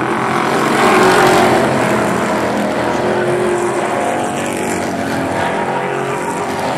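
A pack of Pro Truck race trucks' engines running at racing speed, a dense steady drone of several engines, swelling briefly about a second in as the trucks go by.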